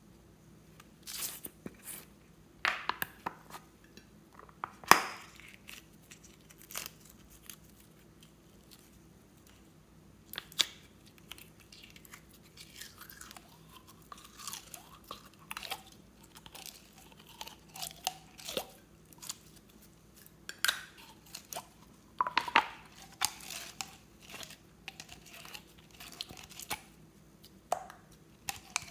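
Store-bought slime squelching and making small wet pops as it is squeezed out of a soft plastic bottle into a glass bowl. Sharp clicks and crinkles come from handling the plastic bottle, the loudest about five seconds in.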